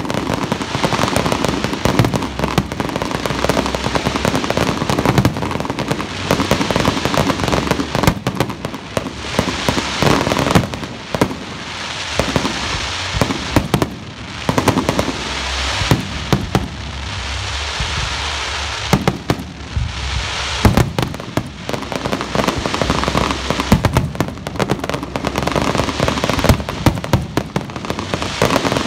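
Fireworks display: aerial shells and low-level shots going off in a dense barrage of rapid, overlapping bangs, easing briefly a couple of times before building again.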